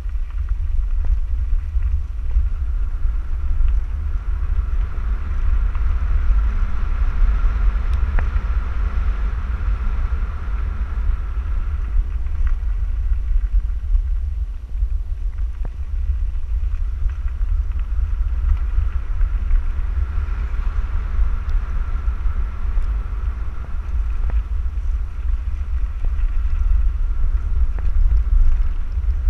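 Electric handcycle rolling down a gravel road, heard as a steady low rumble of wind buffeting the microphone and tyre noise. A faint whine from its electric drive motor comes and goes twice.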